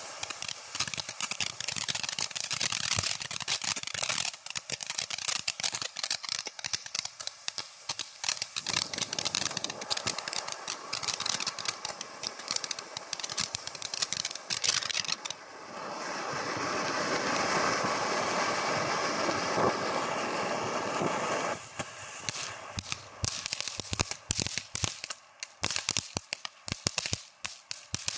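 Fountain firework burning with a dense, rapid crackling. A little past halfway it turns to a steady rushing hiss for several seconds, then crackles again.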